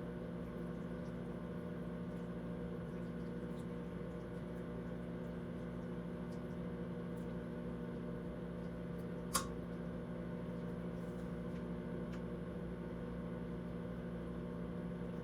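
Microwave oven running: a steady hum with fan noise, and one light click about nine seconds in.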